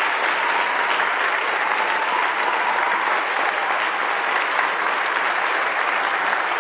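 Audience applauding: dense, steady clapping that holds at an even level throughout.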